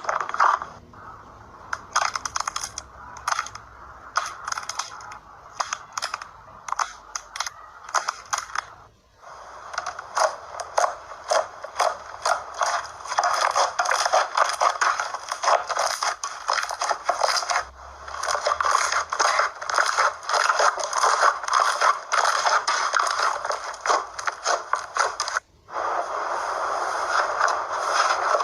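Slime being squeezed and worked by hand, giving a dense run of crackling, popping clicks, with two brief breaks, about nine seconds in and near the end.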